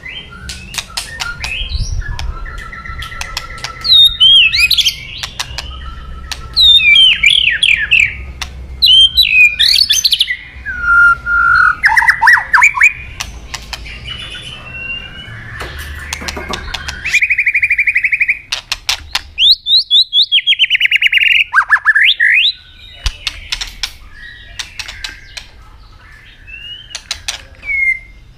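White-rumped shama (murai batu) singing loudly in full song: a rapid string of varied whistled phrases with quick rising and falling sweeps, broken by sharp clicking notes. About two-thirds of the way through comes a buzzing trill, followed by a few long falling whistles.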